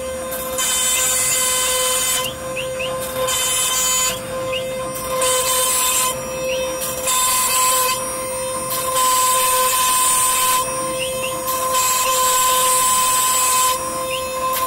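CNC router spindle running with a steady high whine while its bit cuts through MDF: bursts of harsh cutting noise lasting a second or two alternate with short quieter gaps.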